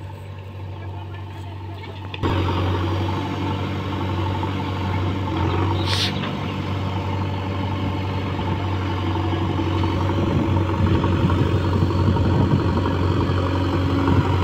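JCB backhoe loader's diesel engine running steadily under work, louder from about two seconds in. A brief high-pitched squeak comes about six seconds in.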